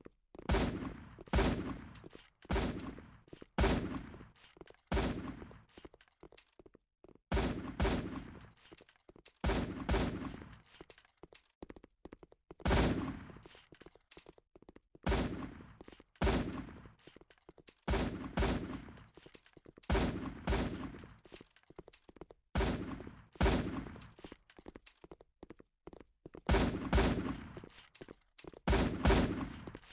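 Slime being squished in the hands, giving clusters of sharp pops and crackles in bursts about every second or so.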